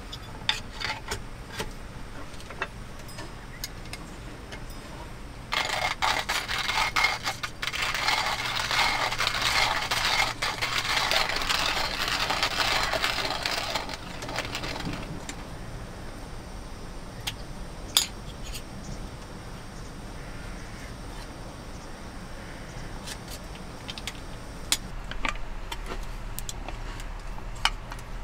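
Hand coffee grinder: a few small clicks and rattles as the beans are handled, then from about five seconds in a loud, grainy crunching grind of coffee beans for about eight seconds, ending in scattered light clicks.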